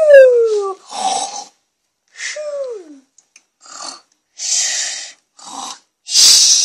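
A child's voice making play-acting breathing noises: breathy huffs and pants, with a falling moan at the start and another about two and a half seconds in.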